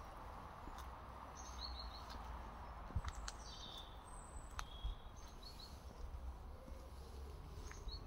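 Quiet street ambience: a low, steady rumble with small birds chirping briefly now and then.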